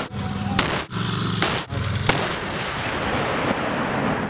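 Tank gunfire on a firing range: three sharp shots in the first half, less than a second apart, over a steady low rumble.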